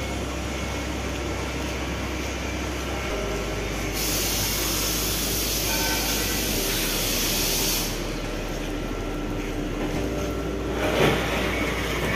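Truck engine idling with a steady low hum. About four seconds in, a loud even hiss of escaping compressed air runs for about four seconds, and there are a few knocks near the end.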